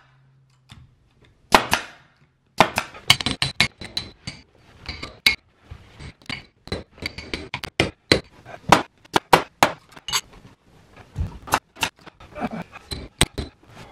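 Hammer striking the steel head of a stair tucking tool, metal on metal, in quick irregular taps several a second, driving the carpet into the crease of a stair step. Near the end, sharp shots from a pneumatic stapler fastening the carpet.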